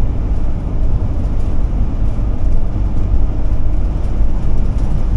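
Steady low rumble of road and engine noise inside the cab of a 2007 Ford E450-chassis Forester motorhome driving on a highway.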